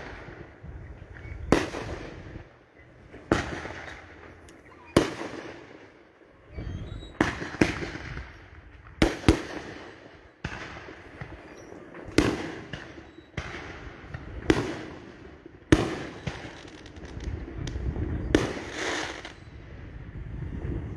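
Fireworks going off in quick succession: about a dozen sharp bangs, one every one to two seconds, each trailing off in a crackling hiss, with a low rumble building near the end.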